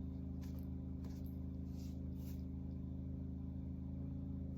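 A steady low hum made of several even tones, with a few faint, brief scratchy sounds over it.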